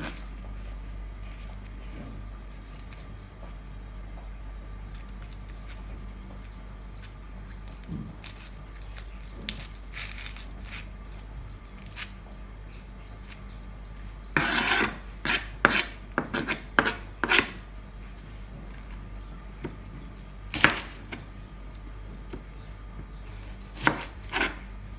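Kitchen knife peeling and cutting red onions on a plastic cutting board. Scattered knocks of the blade on the board, with a quick run of taps in the middle and a few more near the end.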